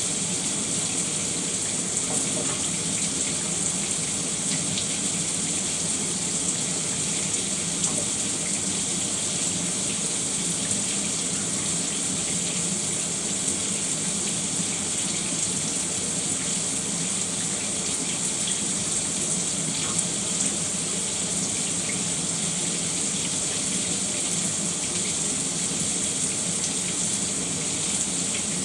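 Shower running steadily, water spraying and splashing in a constant hiss with a few faint droplet ticks.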